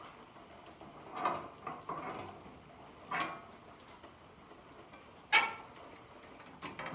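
Metal clanks and rattles from a steel truck tool box door and its chain and pin hardware being handled: about six separate knocks, the loudest a little over five seconds in.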